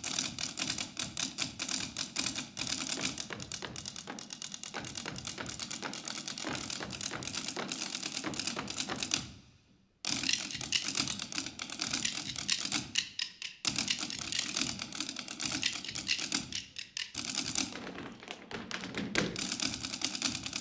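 Irish step dancers' hard shoes tapping rapidly and in rhythm on a wooden stage floor, with no accompaniment. The taps break off briefly a little past halfway, then resume.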